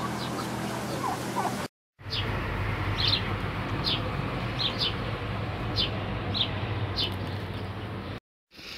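Small birds chirping, short high notes repeated irregularly, over a steady low hum. The sound drops out briefly twice.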